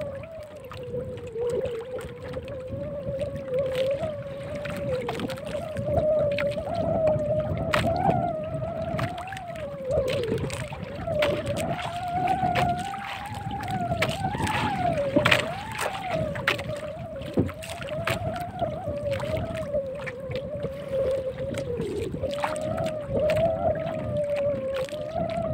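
Small fishing boat's engine running, its pitch wavering slightly up and down, over a low rumble of water and wind noise.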